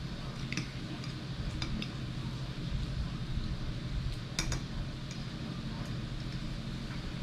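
Metal fork clinking and scraping against a ceramic plate while eating pasta: a few light, separate clinks, the loudest about four and a half seconds in, over a steady low hum.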